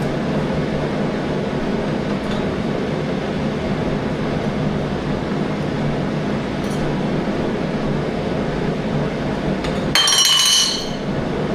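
AC TIG welding arc on aluminium giving a steady buzz while filler rod is fed in. About ten seconds in there is a short, bright metallic clink.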